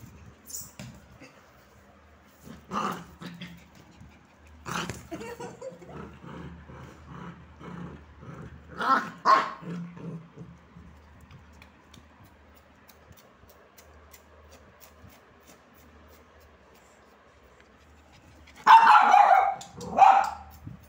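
Small long-haired dog barking and growling in play over a ball: a few short barks, a stretch of rhythmic low growling in the first half, then two loud barks near the end.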